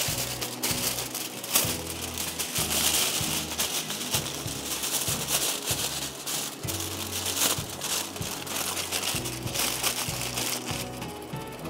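Aluminium foil being crinkled and handled, a dense rustling, over background music.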